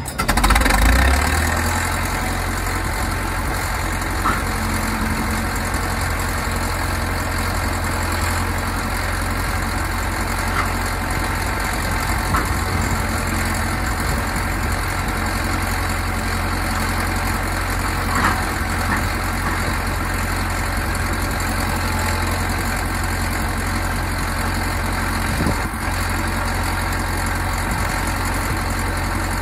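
Caterpillar D4D crawler dozer's diesel engine idling steadily, a little louder in the first second or two before settling, with a few faint ticks.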